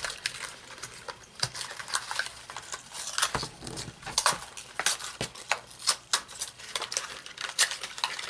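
Cardboard and plastic packaging of a toy blind pack being handled and torn open: irregular crinkling, tearing and small plastic clicks.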